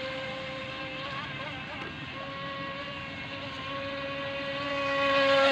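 Small RC boat's electric motor whining at a steady high pitch as the boat runs on the water. The pitch wavers briefly about a second and a half in, and the whine grows louder near the end.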